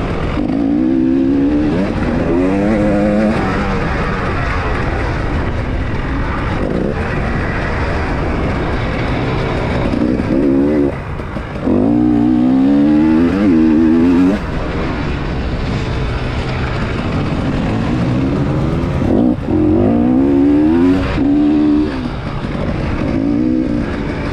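Enduro motorcycle engine on the move, heard from the bike itself. It revs up in repeated rising sweeps as it accelerates and shifts through the gears, loudest about halfway through and again in the second half. Wind and rough-ground noise run underneath.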